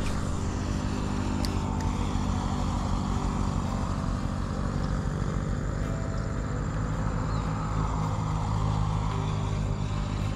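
A small engine running steadily, a low, even hum under a rushing noise.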